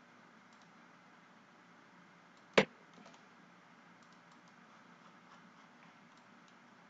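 A single sharp click or knock about two and a half seconds in, much the loudest sound, over faint steady room hiss, with a few soft computer mouse clicks scattered before and after it.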